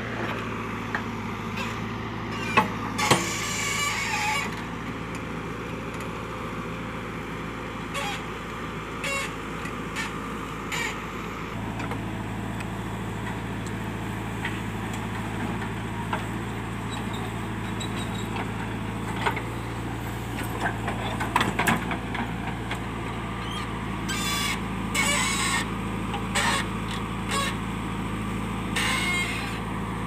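Diesel engines running steadily: a SAME 603 tractor idling close by, then, after a change about eleven seconds in, a JCB backhoe loader at work digging and loading soil, with scattered short knocks and rattles.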